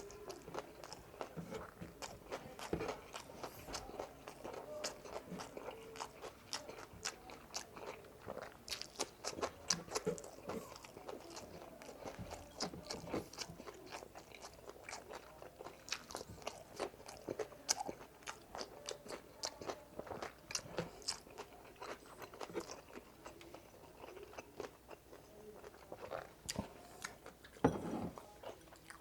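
A person chewing and biting food close to the microphone: a dense, irregular run of small sharp clicks.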